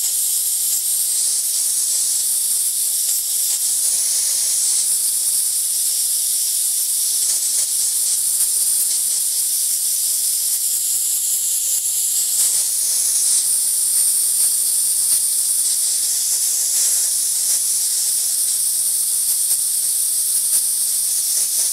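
Compressed-air blow gun hissing steadily as its jet blows residual cleaning liquid out of an inkjet printhead at good air pressure.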